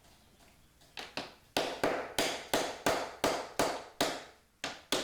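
Tack hammer tapping tacks into an assembly strip on a window frame: a quick series of sharp taps, about three a second, starting about a second in.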